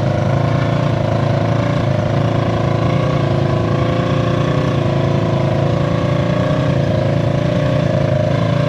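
Off-road vehicle engine running at a fairly steady speed, its pitch rising and dipping slightly now and then.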